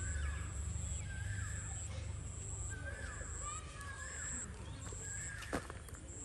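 A bird calling over and over, a short call that falls in pitch about once a second, against a high thin whine that starts and stops every half second or so. A single sharp click near the end.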